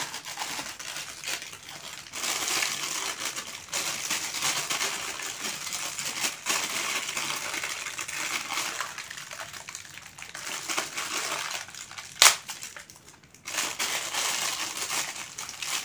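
Plastic packaging bags crinkling and rustling as the parts of a microphone kit are handled and unwrapped. One sharp click, the loudest sound, comes about twelve seconds in.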